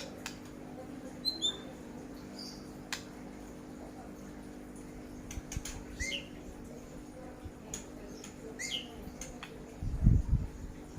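A bird giving short, scattered chirps, a few of them quick sliding calls, over a faint steady hum. There are light clicks throughout, and a couple of low thumps about ten seconds in.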